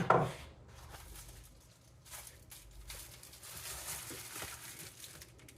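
Parts packaging being handled: faint rustling with a few light taps and clicks.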